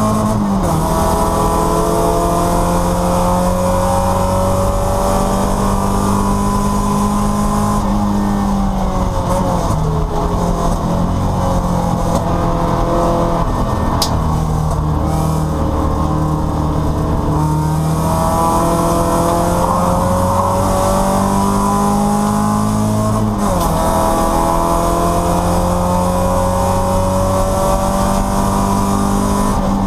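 Porsche 944 race car's four-cylinder engine heard from inside the cockpit, pulling hard with its pitch climbing steadily. It breaks off in a sudden pitch drop at each gear change, just after the start and again about 23 seconds in, with a falling, unsettled stretch through the middle as the car brakes and corners, and one sharp click about 14 seconds in.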